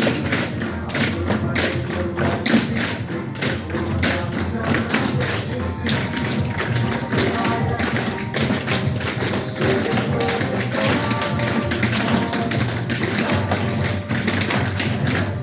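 Metal taps on tap shoes striking the floor in quick rhythmic clicks. They play over a pop song with a steady beat.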